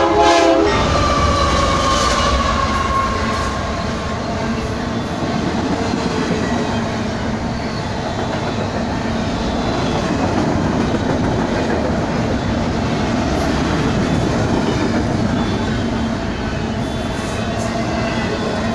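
Horn of a BNSF GE Dash 9 (C44-9W) diesel locomotive cutting off about half a second in as the locomotive passes close by, with a tone falling in pitch over the next few seconds. Then a double-stack container train's well cars roll past, a steady loud rumble with wheel clatter over the rail joints.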